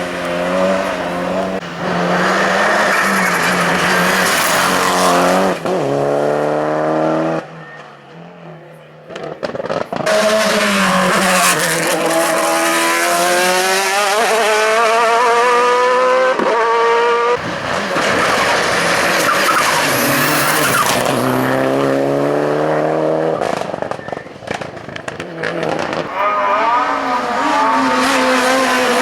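Hillclimb race car engines at full throttle, revving up through the gears, the pitch climbing and dropping back with each shift as cars pass. The sound dips briefly about a third of the way through, then the engines return.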